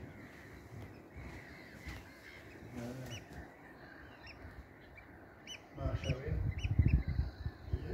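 A flock of wetland birds calling as they fly over, short chirping calls repeated many times, busiest in the second half. About six seconds in a loud low rumble sets in under the calls.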